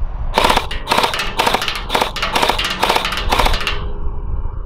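Electric gel blaster on an 11-volt battery firing semi-auto: a string of about eight shots at a little over two a second, each a short clack of the gearbox cycling. The shots stop near the four-second mark. A low wind rumble runs underneath.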